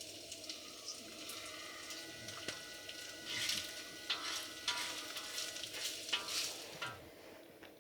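Food sizzling in a pan, with a metal utensil scraping and clinking against it several times; the sizzle fades near the end.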